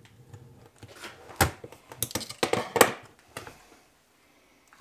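Sharp metallic clicks and clatter of hand tools and metal parts on a workbench: snap-ring pliers working a retainer off a tractor clutch-shaft bearing assembly, then being set down. The clicks bunch together between about one and three and a half seconds in.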